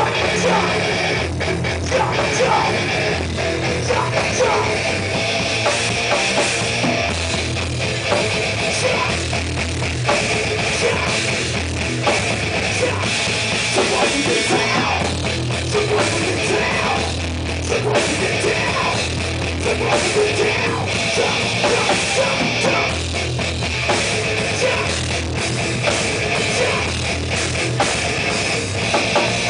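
Heavy metal band playing live in a small rehearsal room: a Pearl drum kit with cymbals pounding under distorted electric guitar, loud and steady throughout.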